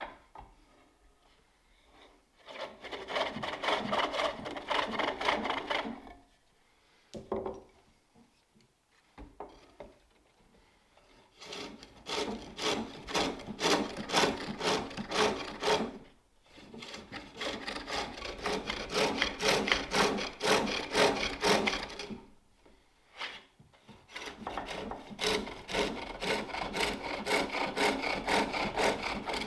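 A cutting tool shaving a wooden bowl blank on a spring pole lathe, in rhythmic strokes of about three a second. It comes in four spells of several seconds each, with short pauses between them.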